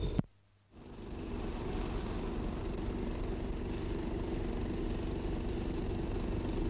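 Steady background noise, a low hum under an even hiss, that drops out to near silence briefly and fades back in about a second in.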